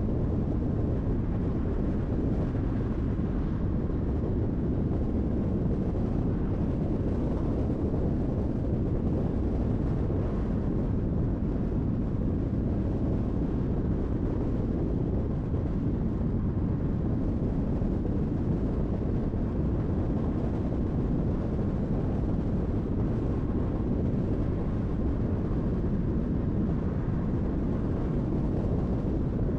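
Steady road noise of a car cruising on a highway: an even, low rumble with no distinct events.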